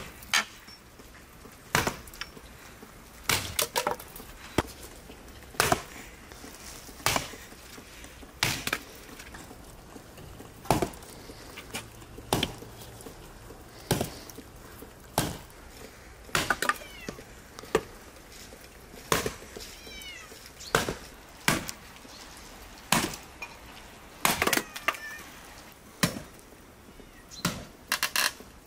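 A hatchet chopping thin branches on a wooden log chopping block, with sharp strikes roughly every one to one and a half seconds. A few short high-pitched calls come between the strikes.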